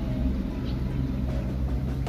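Background music with a steady low bass and held notes.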